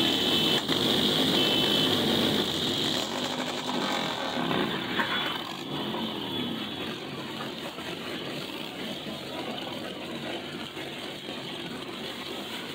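Motorcycle engine running, its pitch rising and falling, growing gradually quieter through the second half as it moves off.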